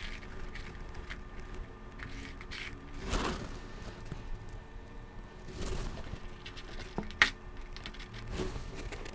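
Paper scraping and rustling as bar magnets are slid about beneath a sheet covered in iron filings, the filings shifting into new patterns, with a sharp click about seven seconds in.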